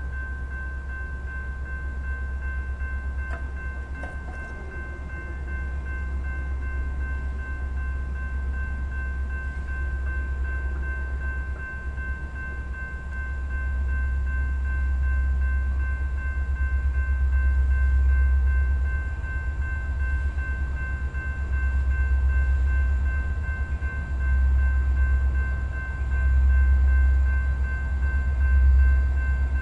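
Union Pacific diesel freight locomotives approaching slowly, a deep engine rumble that swells and grows louder toward the end, with a steady high-pitched whine throughout.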